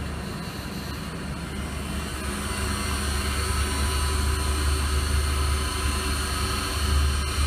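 CNC grinding machine's axis drive jogging the head upward, a steady mechanical drone over a low machine hum, slowly getting louder from about two seconds in.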